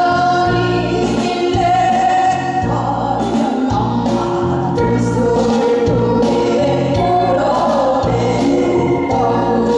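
Women singing a Korean folk song (minyo) into microphones, amplified over a musical accompaniment with a steady, pulsing bass beat.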